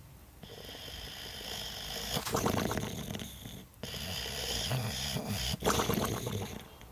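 A Boxer dog snoring: two long breaths, each swelling into a rattling snore, with a brief pause between them.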